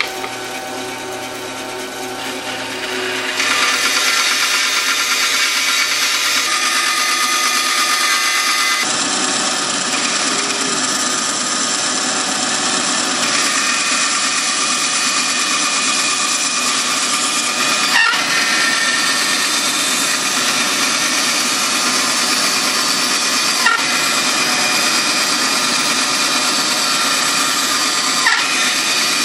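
Bandsaw running and its blade cutting slowly through a wooden board to cut a lap-joint tenon. The sound gets louder about three and a half seconds in as the cut gets going, then holds steady, with a few faint ticks.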